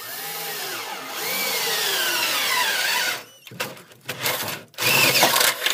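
Cordless drill boring a hole up through the rusty steel underside of a school bus. The motor's pitch slides up and down as the bit bites, running for about three seconds, then in a few short bursts, then running hard again near the end.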